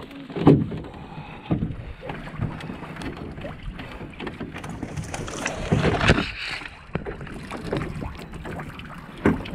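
A canoe being handled and hoisted up onto a man's shoulders to carry it. There are knocks and scrapes of the hull and yoke, and his rain jacket and pack rustle against the camera. A few sharp knocks come early, and a louder burst of clatter and scraping comes around six seconds in as the canoe goes up.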